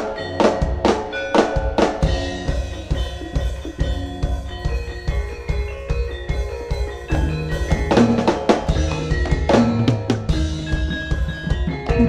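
Jaranan sentherewe ensemble music with loud drum strikes about twice a second at first. These give way to held melodic tones over a steady bass, and drum hits come back near the end.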